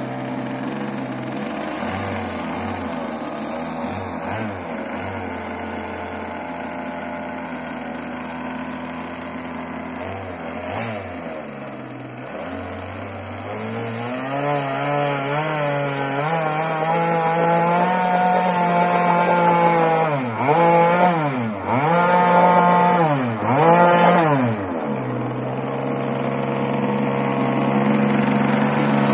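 38cc grass-trimmer two-stroke engine with a homemade sheet-metal expansion chamber, running an RC boat under way. The revs climb about halfway through, then drop and pick up again about four times before holding steady near the end.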